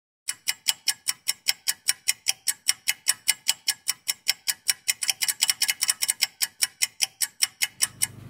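A clock ticking, a steady, even tick about four to five times a second, starting a moment in and stopping near the end.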